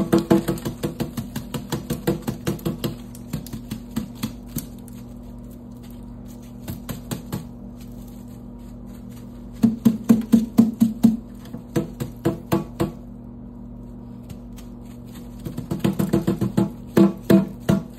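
A dried loofah sponge being banged hard and fast against a stainless steel sink to shake its seeds out. Rapid runs of knocks, several a second, come in four bursts with short pauses between them.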